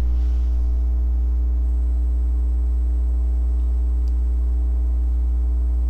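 Steady low electrical hum with a ladder of overtones, mains hum carried on the recording. A faint tick about four seconds in.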